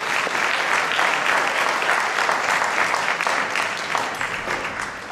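Audience applauding, fading down over the last second or so.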